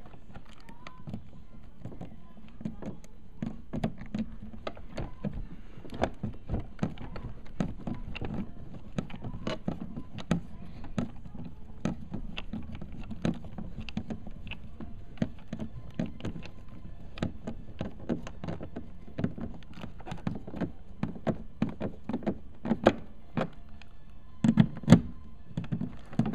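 Screwdriver driving the mounting screws of a cigarette-lighter socket into a thin glove-box panel: a run of small irregular clicks and scrapes, with a few louder knocks near the end.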